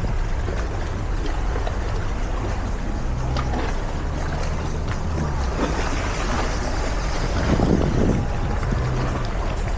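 Wind buffeting the microphone over sea water, with the low steady hum of a boat engine underneath.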